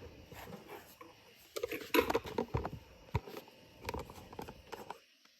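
Irregular clicks and knocks of a DeWalt DCF500 12V cordless ratchet being handled while its quick-change head is worked out and swapped, with a quick run of clicks a couple of seconds in.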